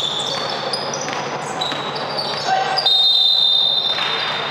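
Basketball game play on an indoor court: sneakers squeaking in short high chirps and the ball bouncing. About three seconds in, a referee's whistle blows one steady blast of about a second, the loudest sound.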